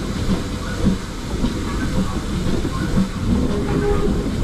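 GWR small Prairie 2-6-2T steam tank locomotive No. 5542 and its train running slowly along the track: a steady low rumble of wheels on rail with irregular clicks and clatter.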